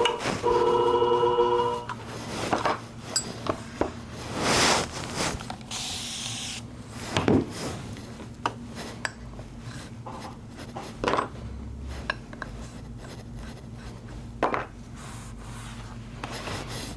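A flat-hone shear sharpening machine's motor is running with a steady hum and is switched off about two seconds in. After that come scraping and rubbing noises and a few sharp clicks and knocks as steel shears, a sharpening stone and a cloth are handled on the bench.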